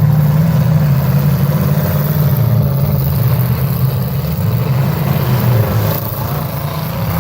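Demolition derby cars' engines running together, a loud, steady low rumble.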